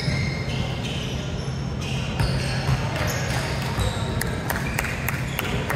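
Indoor basketball game: a ball bouncing on the court with scattered sharp thuds and brief high-pitched sneaker squeaks, over a steady low hum and some background voices.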